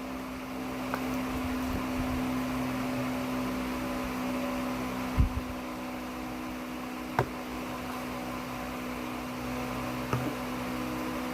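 A steady mechanical hum with a fixed low tone, and three light knocks in the second half.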